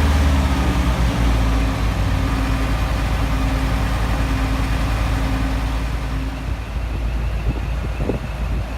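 A large engine running steadily, its pitch dropping a step in the first second as it eases off, then fading away near the end.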